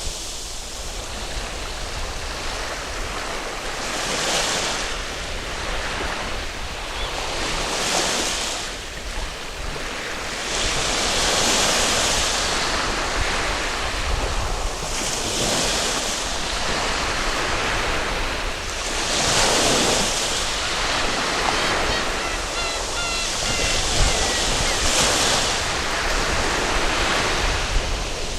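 Waves breaking and washing up a sandy beach, the surf swelling about every four seconds, with wind rumbling on the microphone.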